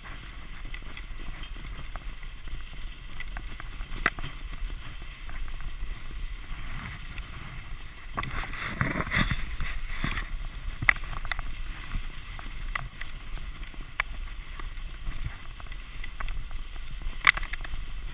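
Sled runners hissing steadily over packed snow as the dog sled glides along, swelling louder about halfway through. Now and then the sled frame gives a sharp knock, the loudest near the end.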